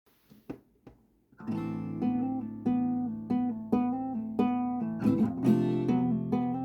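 Acoustic guitar music: a couple of faint clicks, then strummed chords start about a second and a half in and are struck again about every two-thirds of a second.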